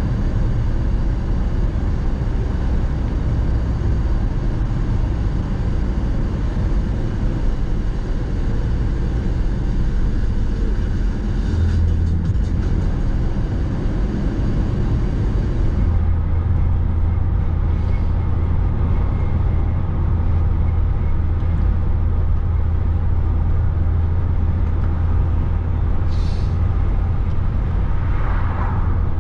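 Road and engine noise inside a moving car's cabin: a steady low drone with tyre rumble, the low hum settling in about halfway through.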